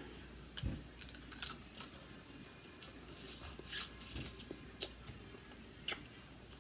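Dungeness crab shell being cracked and picked apart by hand: scattered small cracks and clicks, the sharpest two near the end.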